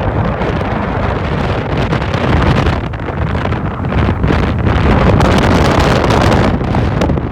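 Loud wind buffeting the microphone: a continuous rush, heaviest in the low end, surging up and down in gusts.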